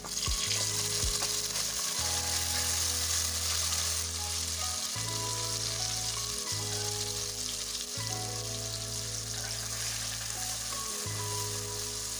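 Sliced onions sizzling and frying in hot oil in a metal pot, stirred with a wooden spoon; partway through, chopped tomatoes and green chilli are in the pot and the frying hiss carries on steadily.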